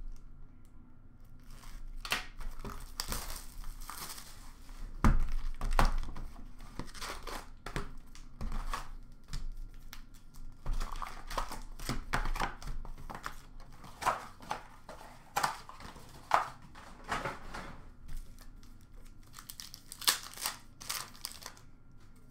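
Plastic shrink-wrap being slit and torn off a sealed Upper Deck hockey card box, then the box's cardboard torn open and the foil packs inside handled. It is an irregular run of short tearing and crinkling sounds, the sharpest about five seconds in.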